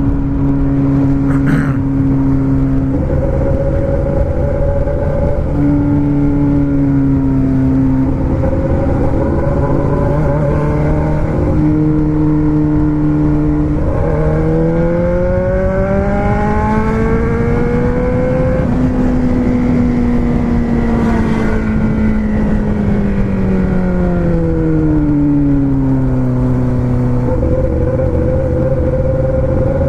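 Four-cylinder car engine running under way, its pitch holding steady with a few sudden shifts, then climbing for about five seconds, slowly dropping away, and climbing again near the end.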